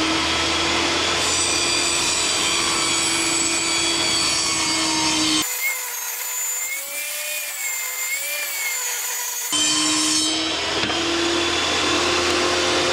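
Table saw running while a pine board is ripped lengthwise. The motor gives a steady hum, and for about four seconds in the middle it changes to a wavering whine. The sound cuts off abruptly at the end.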